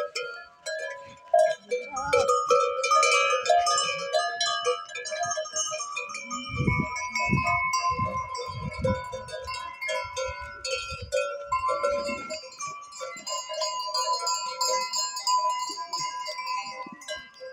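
A herd of goats, many of them Anatolian black goats, jostling past, with many neck bells ringing at different pitches together and an occasional bleat.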